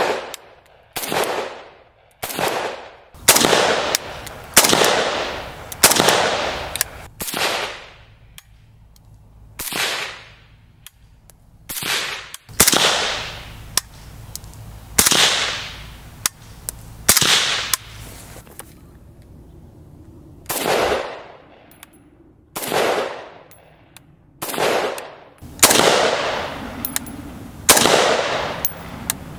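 Single rifle shots from 5.45×39 AK-74-pattern rifles, some fired through a Resilient Putnik suppressor. There are about sixteen sharp reports at an uneven pace, roughly one every one to two seconds, each trailing off in a long echo.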